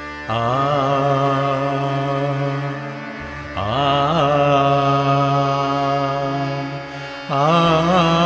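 Male singer holding long sung notes with wavering, melismatic ornaments in three phrases, entering about a third of a second, three and a half seconds and seven seconds in, over a steady backing drone.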